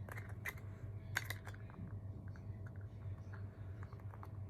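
Scattered small clicks and taps of a phone being handled and pressed into a snap-on case, over a steady low hum.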